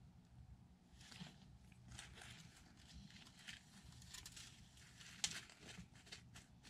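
Faint scratching and rustling of a monitor lizard's claws on the enclosure's rock background and moss as it climbs back inside, with one sharper knock about five seconds in.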